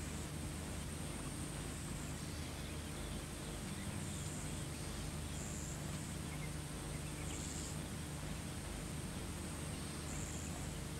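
Steady outdoor ambience of insects: a thin high drone with short high chirps every second or two, over a steady low hum.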